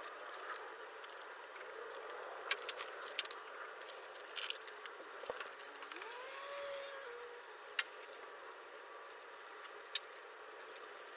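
Faint outdoor background with a steady high insect drone from crickets, scattered small clicks, and a short rising tone about two-thirds of the way through.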